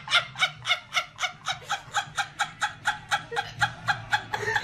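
A woman laughing uncontrollably in a rapid, high-pitched cackle, about five short gasps a second, that winds down near the end.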